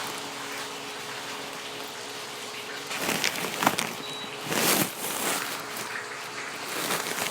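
Dried milkfish (daing na bangus) frying in hot oil, a steady sizzle under a faint hum. From about three seconds in, louder irregular bursts of crackle break through.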